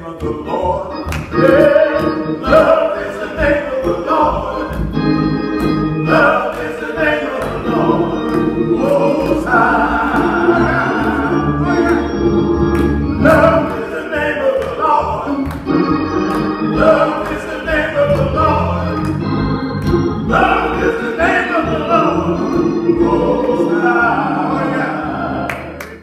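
Gospel singing by men's voices with organ accompaniment, running steadily until it drops away near the end.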